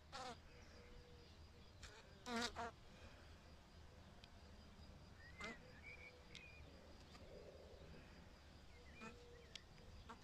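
Honeybees buzzing: a faint steady hum with several short, wavering buzzes as single bees fly close past the microphone, the loudest about two and a half seconds in.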